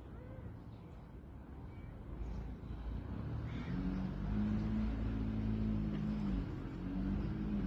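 A motor vehicle's engine running nearby: a low rumble that swells into a steady hum about three seconds in, dipping briefly near the end.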